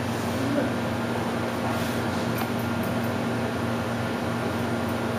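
Steady low mechanical hum with room noise, and a few faint snips of hair-cutting scissors about two to three seconds in.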